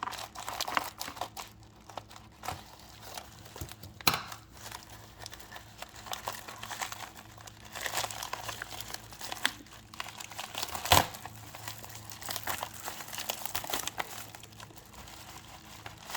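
A shipping package being torn open and its paper and packing handled: irregular crinkling, rustling and tearing, with one sharp snap about eleven seconds in.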